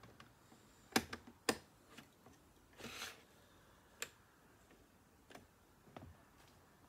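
Plastic Lego bricks clicking and clattering as pieces are handled and pressed together, a scatter of sharp clicks with a short rustle of pieces around three seconds in.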